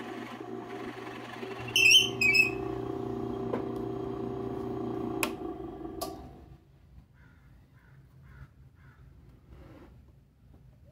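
Drill press motor running steadily as a 7/8-inch bit bores through a maple block, with two short high squeals about two seconds in and a few sharp clicks; the motor stops about six seconds in, leaving faint taps of the block being handled.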